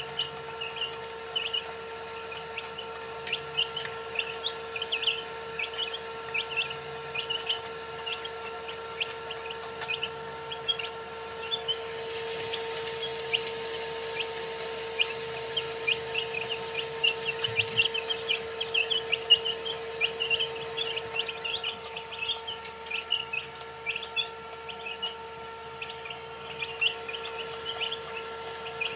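A group of white Heera chicks peeping continuously, many short high cheeps overlapping, over a steady hum.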